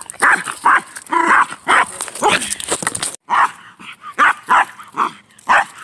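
Small chiweenie (Chihuahua–dachshund mix) barking at another dog: a rapid run of short, sharp barks, about two a second, with a brief break around three seconds in.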